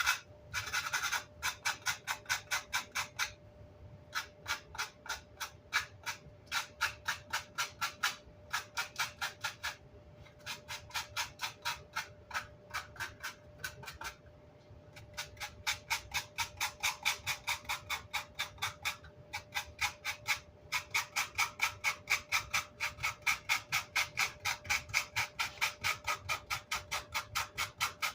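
Quick back-and-forth hand scrubbing, about four rasping strokes a second, in runs broken by short pauses.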